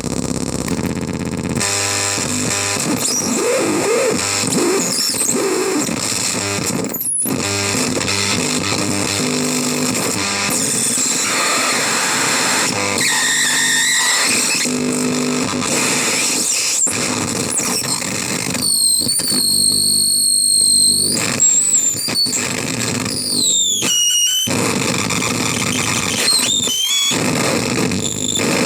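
Waveformer Screaming Baby CMOS harsh noise synth putting out loud, dense distorted noise laced with squealing tones that glide and jump in pitch. A little past the middle a high squeal holds steady for a couple of seconds, then falls away in a downward glide.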